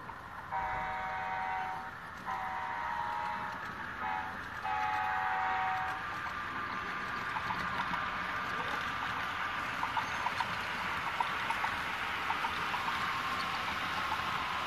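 Multi-chime diesel horn from a model Amtrak locomotive's DCC sound decoder, heard through its small speaker, sounding the grade-crossing signal: long, long, short, long. Then the train runs on with a steady hum and hiss and light, irregular clicks of wheels on the track.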